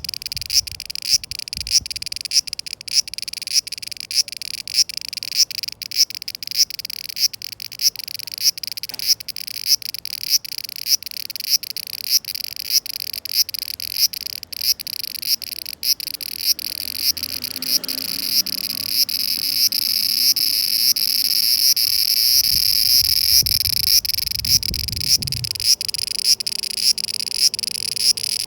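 Cicadas singing: a high buzzing chorus with a regular pulse about twice a second. About two-thirds of the way through it swells into a louder, steadier drone, and the pulsing returns near the end.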